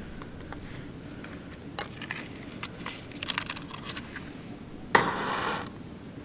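Small clicks and taps of pine kindling sticks and a matchbox being handled, then a match struck on the box just before five seconds in, flaring with a short hiss.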